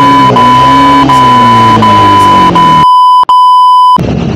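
A loud, steady, high-pitched bleep tone edited over the audio, cutting off suddenly about four seconds in. For its first part a motorcycle engine slowing down can be heard beneath it.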